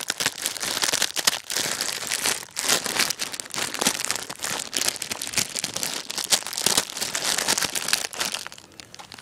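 Plastic ramen noodle packet crinkling and crackling as a hand squeezes it, with the brittle dry noodles inside snapping and crunching, quieter near the end.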